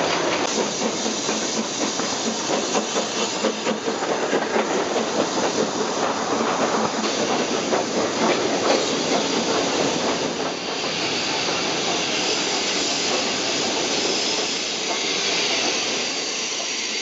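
BR Standard 9F steam locomotive on the move with its coaches: a dense clatter and rush of wheels and steam, fluttering rapidly at first. About two-thirds of the way in it gives way to a steadier steam hiss as the train runs alongside a station platform.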